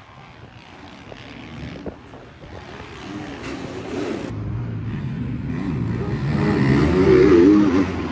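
Motocross race bikes running on the track: faint at first, then engines coming close and getting much louder, their pitch rising and falling as the riders work the throttle, loudest near the end.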